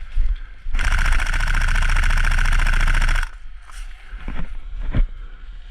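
Airsoft electric rifle, a Tokyo Marui SCAR-L, firing one full-auto burst of about two and a half seconds, its gearbox cycling rapidly and cutting off sharply. A single sharp knock follows about five seconds in.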